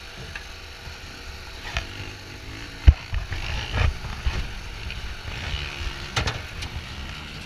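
A cage rattling and knocking: scattered sharp knocks over a low rumble, the loudest knock about three seconds in, with a few faint short squeaks.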